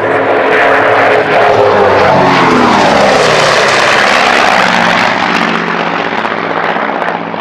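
Grumman F7F Tigercat's twin Pratt & Whitney R-2800 radial engines running hard in a fast low pass. The engine note drops in pitch about two to three seconds in as the plane goes by, then settles into a steady drone that fades slightly near the end.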